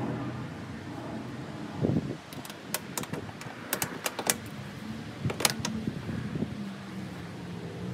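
Sharp metallic clicks and clinks of a mirror bracket and its bolts being handled and fitted against a truck cab: a thump about two seconds in, a run of clicks over the next two seconds and a couple more near the middle. A steady low hum runs underneath.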